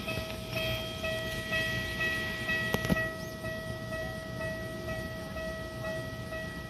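Railway level-crossing bell ringing steadily, about two or three strikes a second, over the low hum of electric trains standing at the platform. A single sharp knock about three seconds in.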